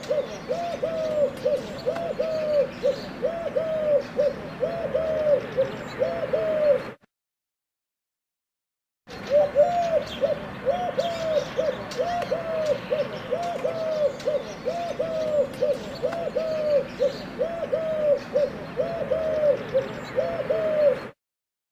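Pigeon cooing: a run of short arched coos, about two a second, that breaks off for about two seconds near the middle and then resumes.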